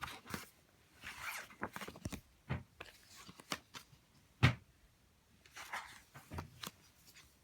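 Rustling and handling noises of a picture book's paper pages being turned, with scattered short crackles and one sharp knock about four and a half seconds in.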